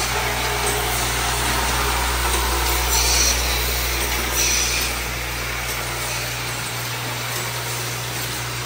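Steady low electric buzz of vibratory bowl feeders and automated marker-assembly machines running. Two short hisses come about three and four and a half seconds in.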